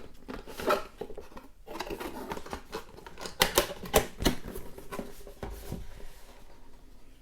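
Cardboard and plastic packaging being handled as a boxed movie case is pulled out of its box: rustling with scattered sharp clicks, the loudest a quick run of clicks about three and a half to four and a half seconds in.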